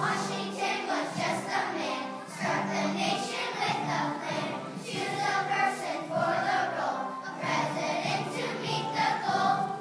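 A children's choir singing together over instrumental accompaniment, the voices coming in right at the start after an instrumental introduction.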